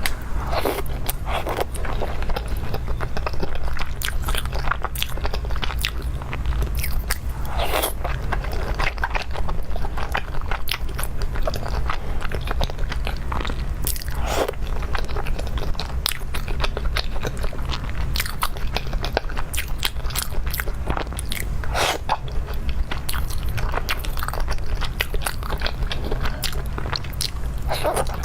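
Close-miked eating: a person biting, crunching and chewing food, with many crisp clicks and crunches spread throughout, over a steady low hum.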